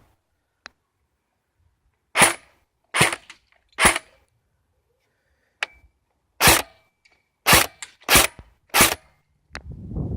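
Electric airsoft gun firing seven single shots, sharp cracks in two irregular groups with short pauses between; the gun's battery is not fully charged. A rustling noise starts near the end.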